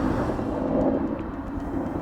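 Helicopter flying, a steady rumble from its rotor and engine that eases slightly after about a second.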